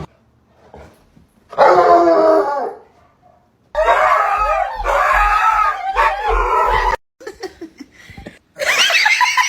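A dog giving long, pitched vocal calls in three separate bouts: a short one early, a longer one in the middle and another near the end.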